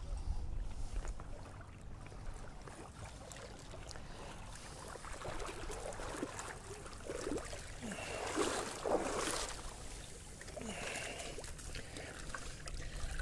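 Water splashing and wet seaweed rustling as a small, freshly hooked sea bass is drawn in through the shallows and landed on weed-covered rocks. The splashy noises come and go, loudest around the middle, over a low wind rumble on the microphone.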